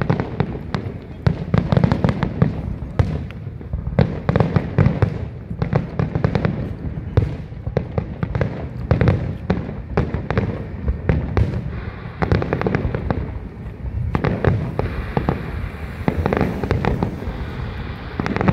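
Fireworks finale: a dense barrage of aerial shell bursts, many bangs and crackles a second over a continuous low rumble.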